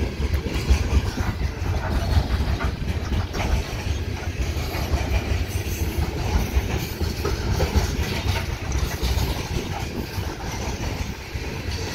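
Loaded-or-empty coal cars of a freight train rolling past. The steel wheels on the rails make a steady low rumble with irregular clatter.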